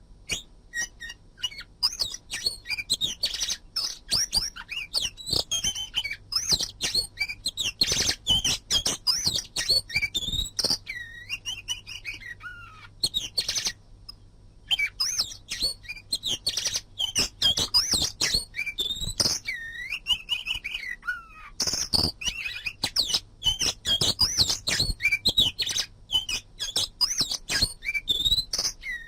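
Oriental magpie-robin singing a rapid, varied song of whistles, slurred chirps and sharp clicks, with a short pause about halfway through.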